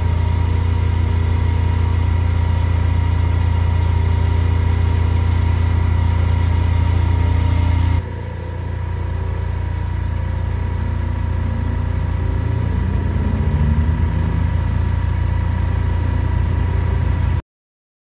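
Kubota utility vehicle's engine idling steadily, with the hiss of water spraying from a sprayer's nozzles. The sound drops and changes suddenly about eight seconds in, then idles on until it cuts off abruptly near the end.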